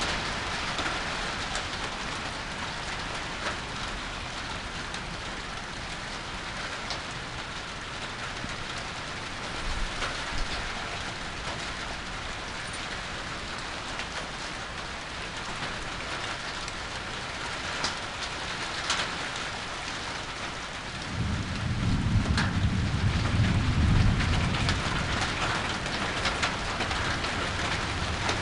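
Steady rain falling, with scattered sharper drop hits, and about three quarters of the way through a low roll of thunder lasting about four seconds.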